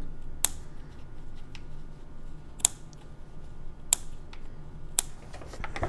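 Small scissors snipping off yarn tails close to a crocheted piece: about four sharp snips a second or so apart, with a few fainter clicks between.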